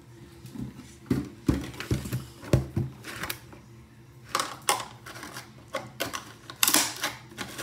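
Clicks and knocks of a makeup case and its brushes being handled on a tabletop: a few heavier thumps, then sharper clicks and rattles in the second half.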